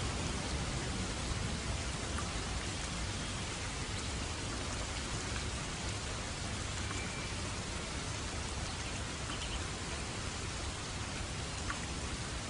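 Steady rain falling: an even hiss with a few single drops ticking out of it.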